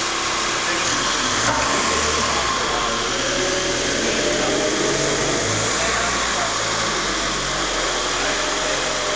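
Forklift truck's engine running under a steady hiss, its low note shifting up and down several times as the truck works.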